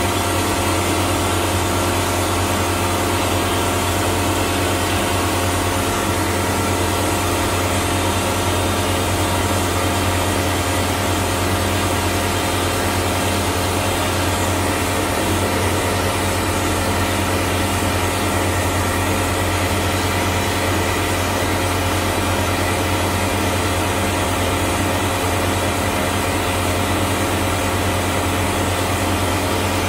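Vapor blasting gun with a 3D-printed plastic nozzle blasting a water-and-abrasive slurry with compressed air: a steady, unbroken hiss over a constant low mechanical hum.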